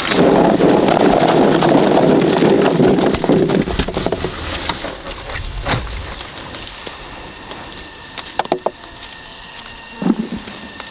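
Rustling of plum-tree leaves and branches as plums are picked by hand. A loud rustle fills the first few seconds, then quieter rustling follows, with a few small sharp snaps near the end.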